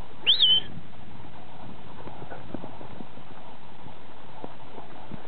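A shepherd's whistle command to a working kelpie: one short, sharp whistle that shoots upward and then settles, about half a second long. It is followed by a steady hiss and faint scattered ticks from the flock of lambs moving over the frozen ground.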